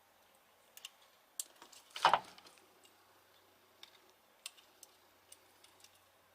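Scattered light clicks and ticks from handling the small parts of an unplugged angle grinder while its carbon brushes are checked, with one louder knock about two seconds in.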